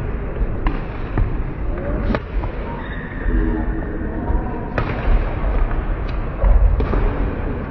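Badminton rackets striking the shuttlecock in a rally: several sharp cracks a second or two apart over the steady din of a large sports hall.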